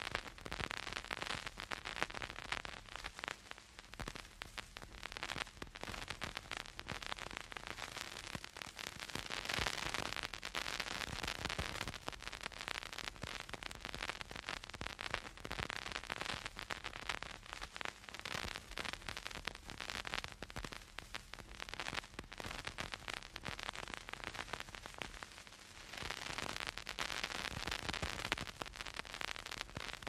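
Vinyl record surface noise from a stylus in the groove: a dense, steady crackle of small clicks and pops over a hiss, with no music playing. The hiss swells and fades several times.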